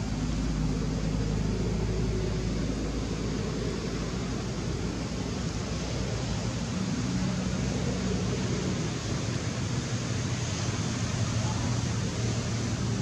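Steady background noise: an even hiss with a low hum beneath it that shifts slightly in pitch.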